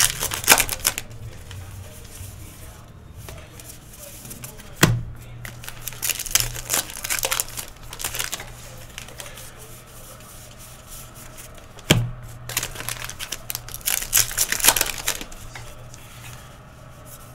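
Baseball card pack wrappers torn open and crinkled in the hands, in three spells of crackling, with a sharp knock about five seconds in and another about twelve seconds in. A steady low hum runs underneath.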